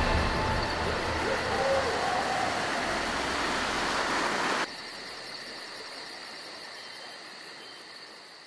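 Surf washing up on a sandy beach, with a steady high drone of night insects like crickets. Just past halfway the surf cuts off suddenly, leaving the insect drone, which slowly fades out.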